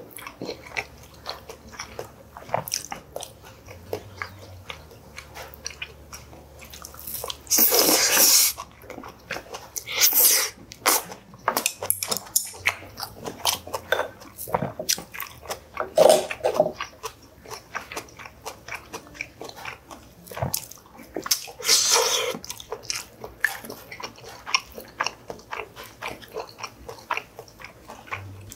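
Close-miked chewing and biting of Korean side dishes and rice, with chopsticks and a spoon clicking against ceramic bowls. A few louder crunchy bites stand out about 8, 10 and 22 seconds in.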